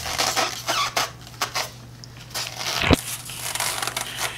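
Handling of a styrofoam cooler and plastic tubing: irregular squeaks and scrapes, with one sharp knock about three seconds in.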